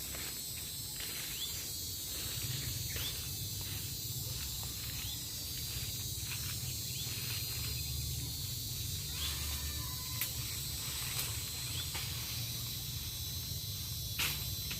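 Insects trilling steadily, with a low steady rumble underneath, scattered short chirps and a couple of sharp clicks near the end.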